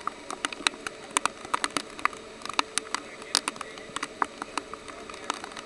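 Flash-flooding creek rushing steadily, with many sharp, irregular clicks and knocks scattered through it, several a second.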